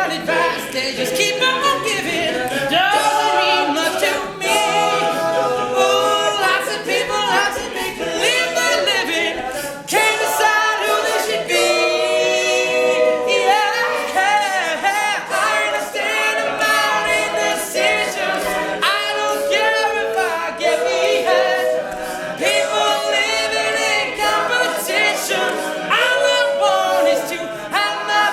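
All-male a cappella group singing, several voices in close harmony with no instruments.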